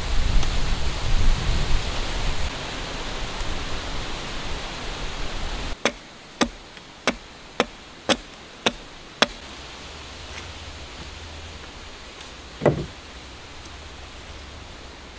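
A steady rushing noise stops abruptly, followed by seven sharp, evenly spaced strikes about two a second: a hand tool striking wood. A few seconds later comes a single duller thump.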